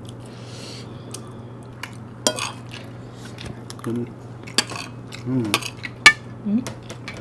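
Metal spoons and forks clinking and scraping on dinner plates and bowls: several sharp clinks, the loudest about six seconds in.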